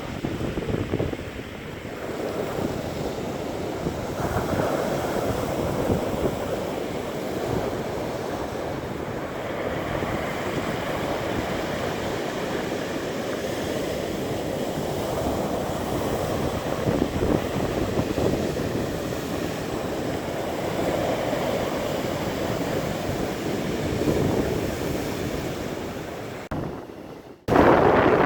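Storm surf on the Black Sea breaking and washing on the shore in a steady rolling noise that swells and ebbs every few seconds, with wind buffeting the microphone. The sound cuts out for a moment near the end.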